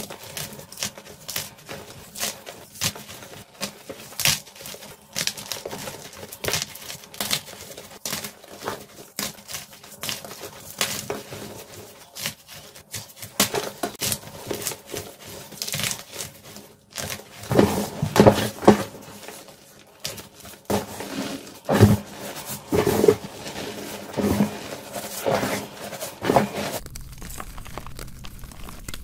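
Blocks of gym chalk squeezed and crumbled in bare hands: a dense run of dry crunches and crackles, louder in the second half.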